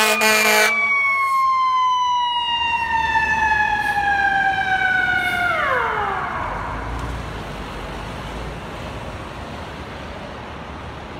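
Fire engine's Federal Q2B mechanical siren winding down: air horn blasts stop within the first second, then the siren's wail falls slowly in pitch and drops away quickly about six seconds in. After that, the low rumble of the idling truck and street traffic remains.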